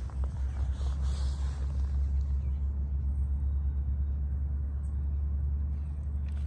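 Low, steady wind rumble buffeting the microphone outdoors.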